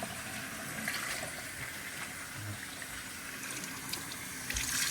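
Hot tap water running into a pot of white rice in a sink as the rice is washed to rinse out the starch, a steady splashing that gets louder near the end.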